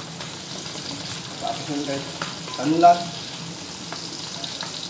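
Steady sizzling hiss of food cooking in a pot on the stove, with a few light clicks. A short voiced sound about three seconds in is the loudest moment.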